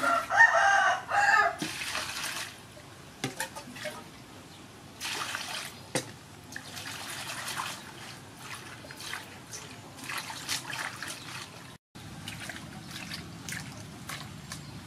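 A rooster crows once at the start, the loudest sound here. Then water splashes and sloshes in a metal basin as leafy greens are washed by hand, with small knocks and clicks.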